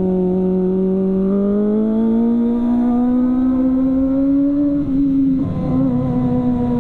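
Kawasaki ZX-25R's inline-four engine, fitted with an aftermarket CLD exhaust, being ridden on steady throttle. The engine note climbs slowly in pitch, wavers briefly about five seconds in, then holds steady.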